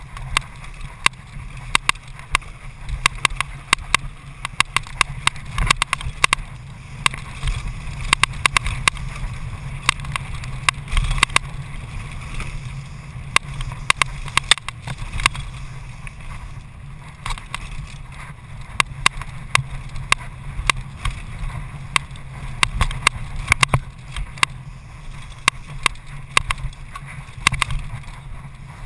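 Downhill mountain bike ridden fast down a bumpy dirt trail, heard from an on-board camera: a steady low rush of wind and tyre rumble with frequent irregular sharp clicks and rattles as the bike jolts over the ground.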